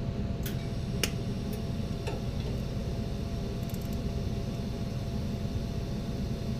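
TIG welding on a steel roll cage: a steady hum with a faint thin tone held through it, and a few light ticks in the first second and a half.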